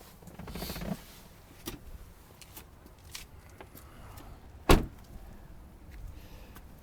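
A car door being shut with one loud, sharp thump about two-thirds of the way in, after some brief rustling and handling sounds.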